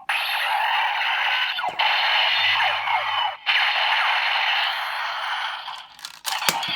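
DX Break Gunner toy's electronic sound effect for the Massive Monster Shift Car, played through its small tinny speaker. It is a loud, harsh, sustained noise that breaks off briefly twice and fades out, followed by a few clicks of the toy being handled near the end.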